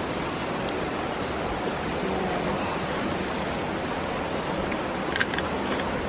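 Steady rush of a mountain stream, with one sharp crack near the end.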